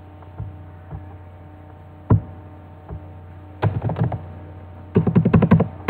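Computer keyboard keys being pressed: a few single keystrokes, then a quick run of about ten presses near the end, over a steady low hum.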